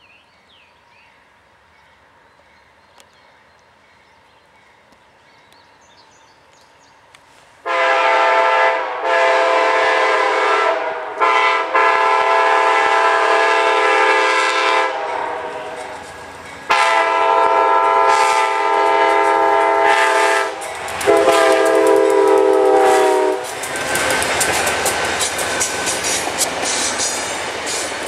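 Amtrak P42DC locomotive's five-chime Nathan K5LA air horn sounding a horn salute: after a quiet stretch it starts about eight seconds in and plays a series of long, loud blasts with short breaks between them. Near the end the horn stops and the train passes, with a steady rushing noise and rapid wheel clatter over the rail joints.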